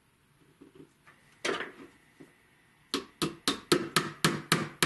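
Small hammer tapping a pin into a flintlock pistol's wooden stock. There is one knock, then about halfway through a quick, even run of light taps, about four a second.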